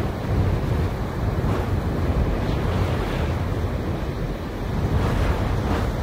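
Wind blowing through grass, with wind in trees behind: a steady rushing noise, heaviest in the low end, swelling slightly a couple of times.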